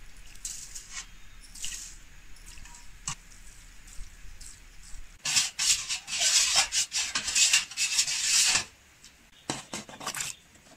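A metal ladle stirring and scraping in a cooking pot, with a loud scraping stretch of about three seconds in the middle. A few short clatters follow near the end as cut kohlrabi and carrot sticks are tipped in from a metal bowl.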